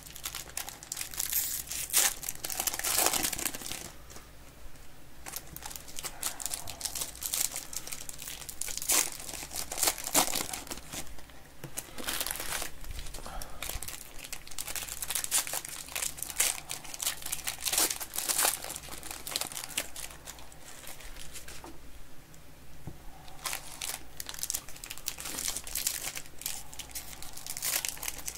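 Foil wrappers of Panini Legacy football card packs being torn open and crinkled by hand, with irregular crackling rustles throughout.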